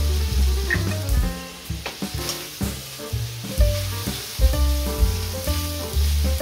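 Thin slices of beef brisket sizzling in a hot pan as they are stirred with wooden chopsticks, with a couple of sharp clicks about two seconds in.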